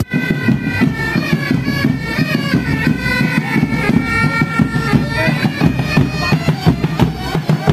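Marching pipe band playing: several bagpipes sound a melody over their steady drones, with drums beating along.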